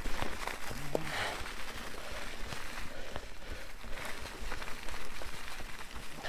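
Mountain bike rolling fast downhill over a rough, leaf-covered dirt trail: steady tyre noise with frequent knocks and rattles from the bike over the bumps, picked up through the handlebar mount.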